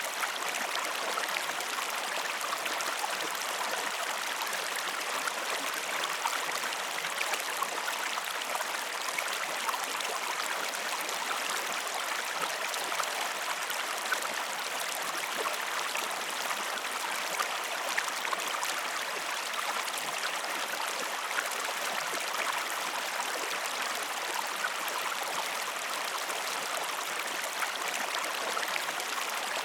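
River water flowing steadily, an even rush with small splashes and gurgles throughout.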